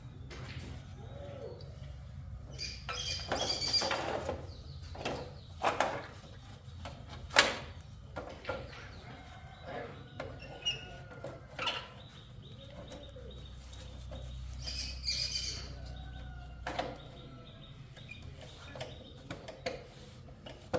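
Motorcycle engine idling as a low steady hum, under scattered clicks and knocks from work on the bike, with one sharp knock about seven seconds in.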